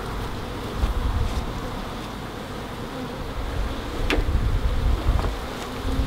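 Honeybees in a wooden shipping package buzzing steadily as the box is lifted and tipped to pour them into the hive. Low rumbles of handling come and go, with a sharp knock about four seconds in.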